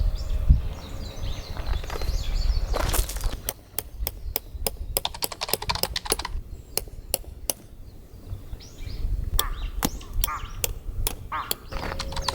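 A quick run of sharp taps or clicks, about three to four a second, that pauses for a second or so and then comes again, over a low rumble; small bird calls near the start.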